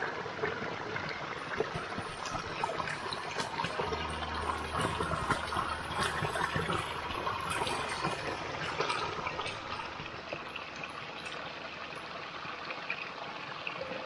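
Shallow stream of water trickling and splashing over rocks and ice, close up, a steady rushing with small splashes.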